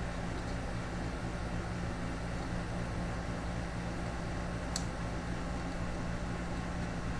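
Steady low electrical hum with hiss, and one small sharp click about five seconds in.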